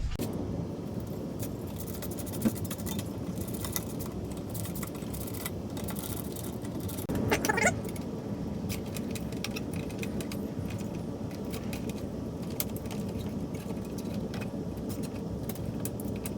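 Scattered light clicks and small metallic rattles as electrical wiring is tucked and bundled and a 240 V outlet is pushed into its box, with a louder rattle about seven seconds in, over a steady low background noise.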